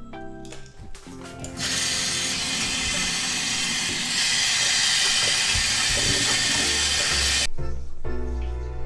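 Steady rushing noise for about six seconds, tap water running into a stainless steel sink over plums in a colander, stepping up in level about halfway and cutting off abruptly; background music with held notes before and after it.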